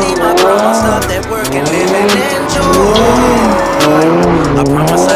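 Car tires squealing in a continuous screech that rises and falls in pitch as the car spins donuts. Music plays along with it.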